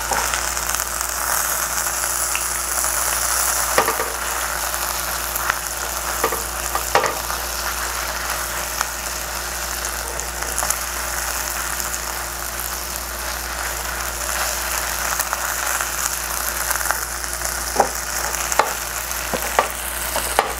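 Boneless chicken thigh pieces sizzling in their own rendered fat in a frying pan, a steady hiss broken by a few light clicks of chopsticks against the pan.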